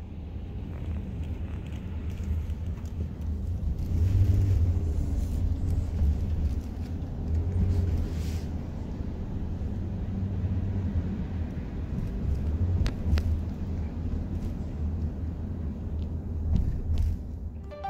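Low, steady rumble of a car in motion heard from inside the cabin, with a few faint clicks.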